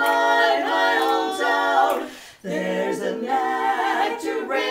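Women's barbershop quartet singing a cappella in four-part harmony, held chords moving from note to note, with a short break about two seconds in before the voices come back in.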